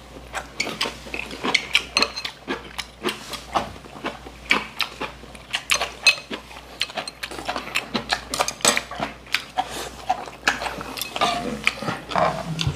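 Chopsticks clicking and tapping against ceramic bowls and a pot in quick, irregular clinks, with noodle slurping between them.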